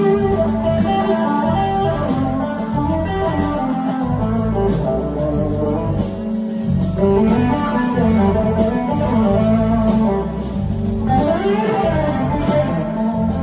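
Live band playing a blues-rock instrumental passage led by electric guitar on a red Gibson SG, with notes that slide up and down in pitch, over drums and bass.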